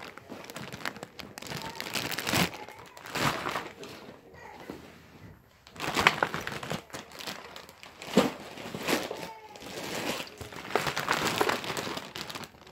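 Close rustling and crinkling in irregular bursts, things being handled right against the microphone.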